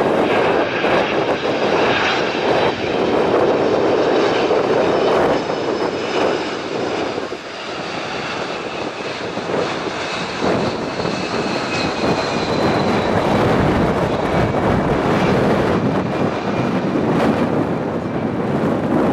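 Jet airliner's engines running loud, a dense rush of noise with thin high whines that slowly fall in pitch, as the aircraft passes.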